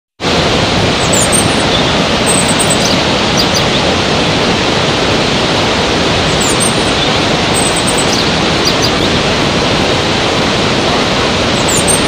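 Large waterfall and rapids, a steady, dense rushing of water, with faint high chirps now and then.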